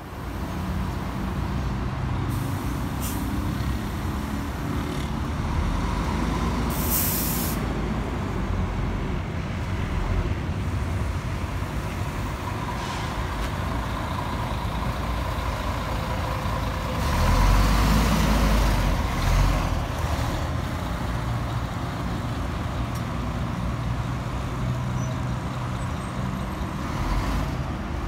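City buses running in a bus terminal: steady diesel engine rumble, with a short sharp air-brake hiss about seven seconds in and a louder surge of engine noise around two-thirds of the way through as a bus pulls close.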